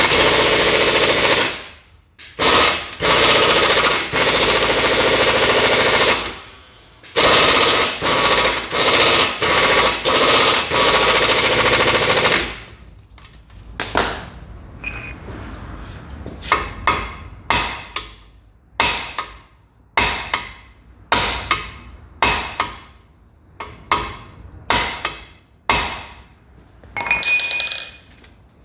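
Pneumatic impact wrench hammering on the hard-to-move driveshaft bolt at the wheel hub, in three long bursts and then many short ones. The bolt does not come loose.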